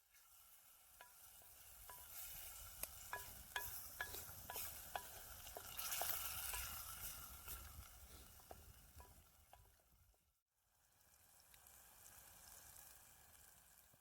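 Food sizzling in a pan while a spoon stirs it, the strokes giving short ringing clicks against the pan. The sound cuts out sharply about ten seconds in, then a quieter sizzle continues.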